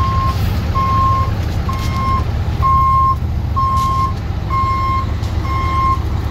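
A vehicle's backup alarm beeping steadily about once a second, over the low, steady running of a diesel engine.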